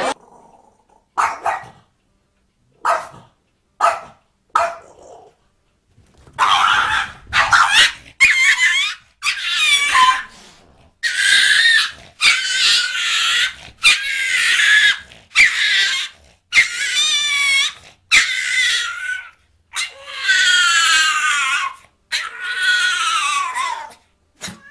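A small dog giving a long run of high-pitched, drawn-out barks, about one a second, after a few short sounds in the first seconds.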